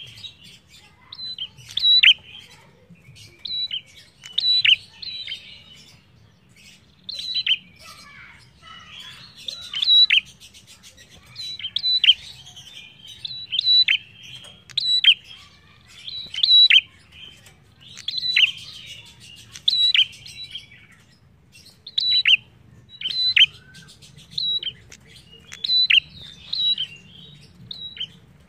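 A prenjak calling over and over, about one loud sharp call every second or so, each a high note that drops quickly in pitch. A softer buzzing chatter runs between the calls, with two longer rattling trills.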